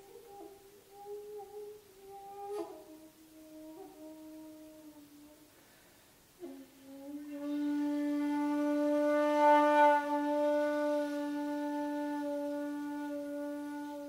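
Shakuhachi, a bamboo end-blown flute, playing a slow, soft phrase of bending notes that step downward. About six seconds in it starts a long low note, held to the end and swelling loudest in the middle.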